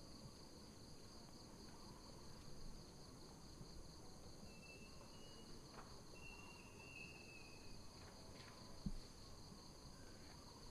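Faint, steady, high-pitched drone of insects, slightly pulsing, with a few faint whistles in the middle and a single soft low thump near the end.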